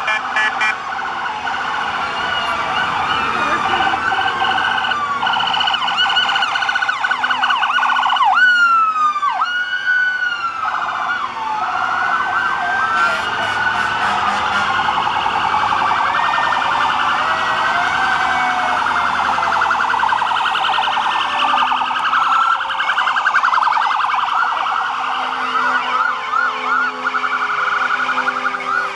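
Fire truck and emergency vehicle sirens sounding together, several overlapping wails and fast yelps, with one siren's tone sliding slowly down in pitch through the second half.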